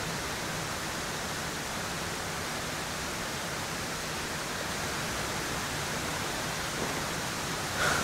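Steady, even rush of a river running beside the campsite.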